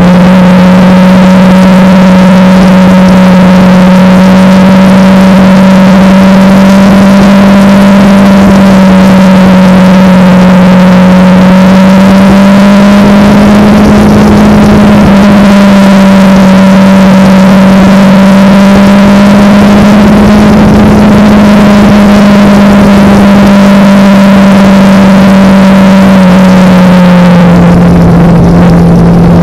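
Kawasaki Ninja parallel-twin motorcycle engine running steadily at cruising speed, very loud, over a steady rushing noise. Its pitch rises a little about halfway through and drops a couple of seconds before the end as the throttle is eased.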